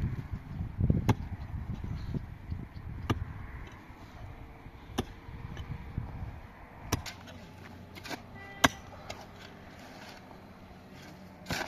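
Pickaxes striking hard, stony soil, a sharp chock about every two seconds with the rattle of loosened earth and stones between blows. A low rumble runs under the first two seconds.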